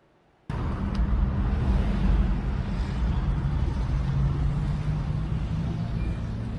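A car driving, with steady engine and road rumble, recorded on a phone from inside the car; it starts abruptly about half a second in.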